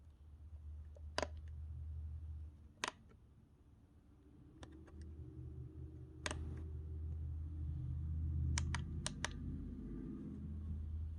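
Sharp plastic clicks from handling the digital alarm clock radio: single clicks every second or two, then a quick run of four near the end, over a low handling rumble.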